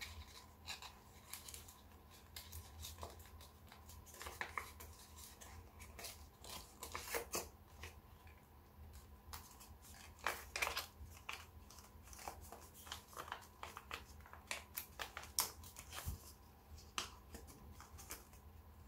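A sheet of origami paper being folded and pressed into shape by hand: irregular crinkles and rustles, with sharper crackles now and then as creases are pinched.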